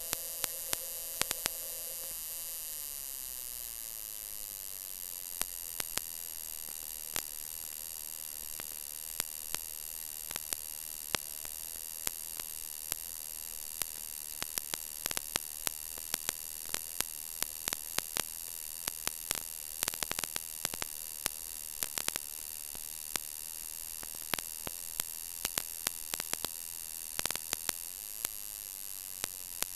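Steady electrical hum and hiss with a thin high whine, broken by frequent sharp crackling clicks; a lower tone drops out about two seconds in. No engine is heard through the interference.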